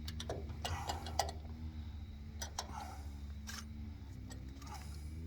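Scattered metal clicks and scrapes of a wrench turning a shutoff valve onto a threaded pipe nipple, over a steady low hum.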